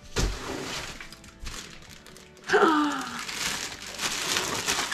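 Plastic packaging rustling and crinkling as a bagged propane hose with regulator is lifted out of the box, with a short falling vocal sound about halfway through.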